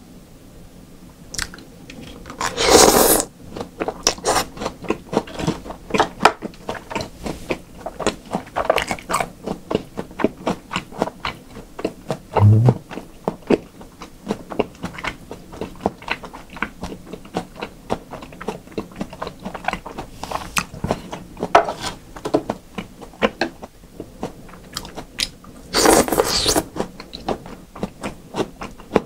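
Close-miked chewing of raw beef yukhoe, with rapid wet mouth clicks throughout. Two louder, longer bites come about three seconds in and near the end. A brief soft low thump sounds midway.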